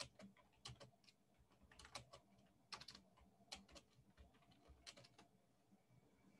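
Faint typing on a computer keyboard: irregular, spaced-out keystroke clicks.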